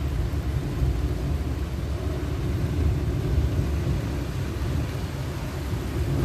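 Heavy rain and wind, with the wind hitting the phone's microphone to give a steady, uneven low noise under a fainter hiss.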